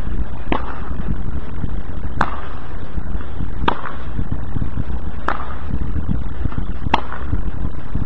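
Tennis rally on a hard court: five sharp ball-on-racket hits about a second and a half apart, over a steady low rumble.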